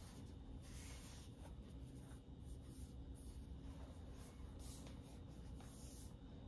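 Faint soft rubbing and brushing, several short strokes, as hands slide over and turn an M2 MacBook Pro's aluminium case, over a low steady room hum.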